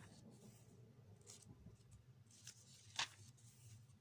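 Near silence with a low steady hum and a few faint clicks and light rustles, one sharper click about three seconds in.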